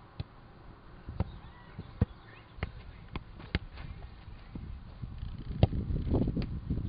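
Football player's footsteps running on grass close to the microphone, a series of sharp thuds, with the thump of a football being kicked. A low rumbling noise builds near the end.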